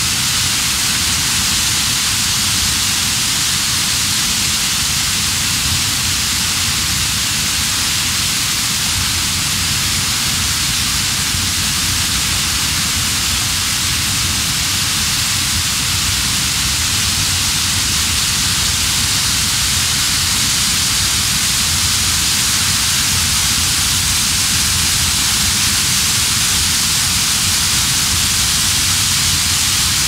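Water from a small waterfall rushing and splashing over rocks: a steady, loud hiss.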